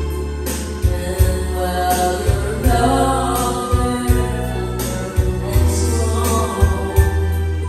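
Karaoke backing track with a steady bass beat, and a girl singing along into a microphone.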